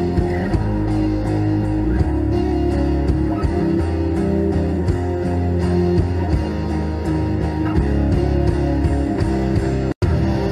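Background music led by guitar, with no vocals; the sound cuts out completely for an instant near the end.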